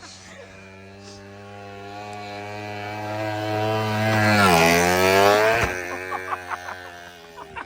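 A small motorbike engine passing by at steady throttle: it grows louder as it approaches, its pitch drops sharply as it goes past, then it fades away.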